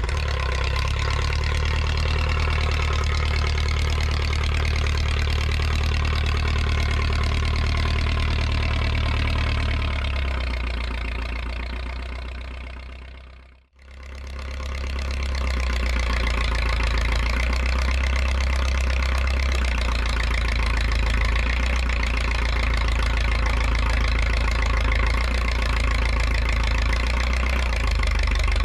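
1974 Case 450 crawler dozer's gasoline engine running steadily, freshly tuned with new ignition points. The sound fades out and back in about halfway through.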